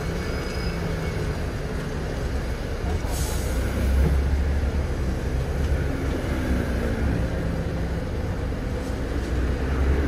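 City bus engine running at low speed and then idling, heard inside the cabin as a steady low rumble that grows heavier about four seconds in. A brief hiss comes about three seconds in.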